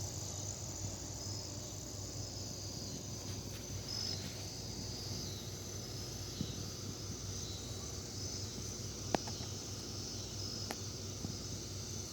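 Outdoor insect chorus: a steady high-pitched trilling, with a short higher chirp repeating about every two seconds and two faint clicks late on.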